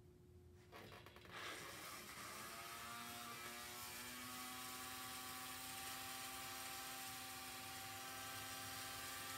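Lionel 3927 track cleaning car's small electric motor starting about a second in, its whine rising in pitch for a couple of seconds and then holding a steady pitch as it spins the cleaning roller. Freshly cleaned and oiled, it runs smoothly, not growling.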